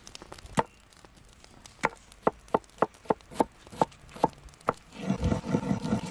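Knife chopping cabbage on a cutting board: a single cut, then a steady series of about eight sharp cuts, two or three a second, turning into quicker, rougher chopping near the end.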